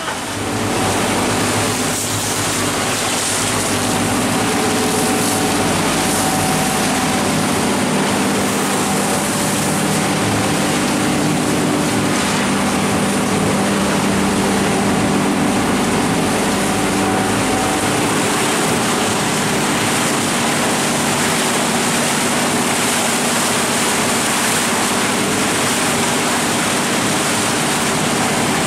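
Lobster boat's engine running steadily under way, with the rush of water spraying off the hull over it.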